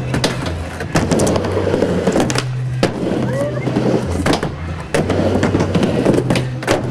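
Skateboard rolling back and forth on a mini ramp, the wheels running with a steady roar, broken by several sharp clacks as the trucks and board hit and grind the ramp's coping.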